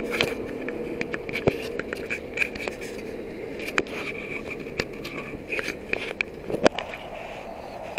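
Handling noise on an action camera: scrapes and scattered sharp clicks of fingers and the frame's lid against the camera housing as the lid is opened, over a steady hiss.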